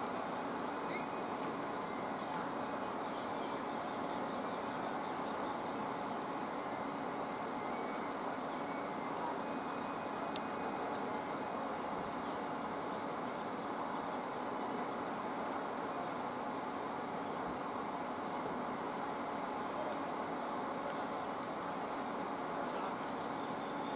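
Steady outdoor background noise, an even low hum with no distinct events, with a few faint, short, high bird chirps.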